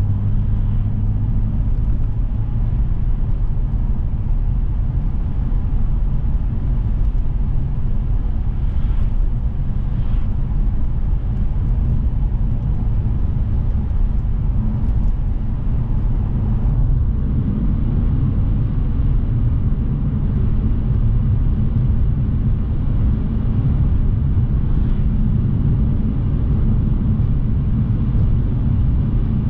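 Steady road noise of a 2006 BMW 630i driving at speed, its engine hum and tyre rumble heard from inside the cabin.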